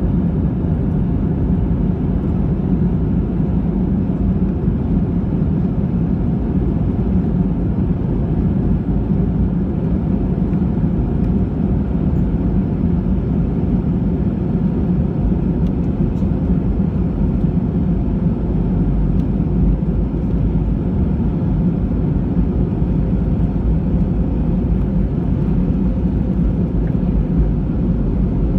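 Steady low cabin rumble of an Airbus A320 taxiing, heard from inside the passenger cabin: engines at low thrust and wheels rolling over the concrete. The noise holds even, with no build-up of a takeoff run.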